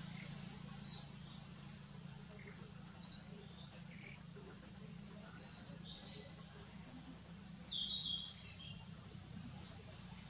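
Forest ambience: short high chirps repeating every couple of seconds, with a cluster of several near the end, over a steady high insect hiss and a low steady hum.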